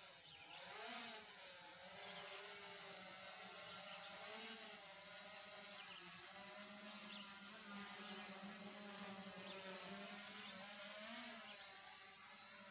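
Quadcopter drone's propellers humming faintly, a stack of pitches that wavers up and down as the motors adjust while the drone descends to land.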